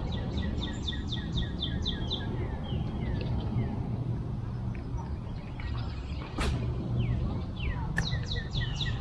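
Songbirds singing: rapid runs of short, high, repeated notes near the start and again near the end, with scattered falling chirps between, over a steady low rumble.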